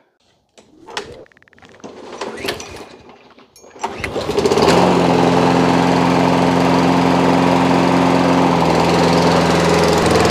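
Toro Recycler push mower's small engine starts about four seconds in, after some faint handling clicks, and then runs steadily at speed, its note shifting slightly a little past eight seconds. This mower's engine won't shut off when the handle is released, because its control bracket doesn't touch the switch stop to ground the ignition.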